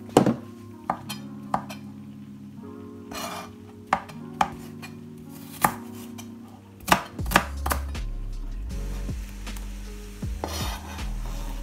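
Kitchen knife chopping onion and mushrooms on a plastic chopping board: sharp, unevenly spaced knocks, about eight of them, over the first seven seconds. A low hum comes in about eight seconds in, and near the end the chopped veg is scraped off the board into a frying pan.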